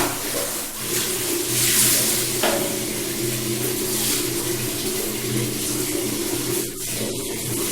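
Water running from a tap and splashing, with a steady low hum underneath.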